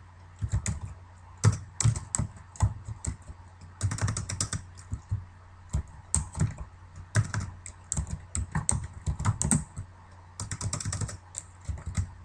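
Typing on a computer keyboard: uneven runs of quick keystrokes broken by short pauses, over a low steady hum.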